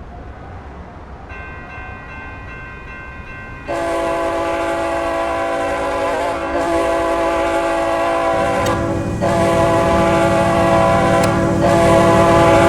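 BNSF freight locomotive's multi-tone air horn blowing a series of long blasts with short breaks between them, faint at first and much louder from about four seconds in as the train approaches. About two-thirds of the way through, a low rumble from the oncoming train swells up under the horn.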